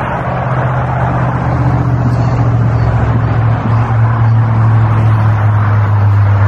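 A motor vehicle's engine on the nearby road: a steady low drone that grows louder over the first few seconds, then holds.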